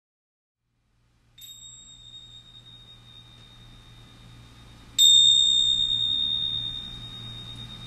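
A high, pure bell-like ding over a low hum. It sounds faintly about a second and a half in, then is struck again much louder about five seconds in and fades slowly.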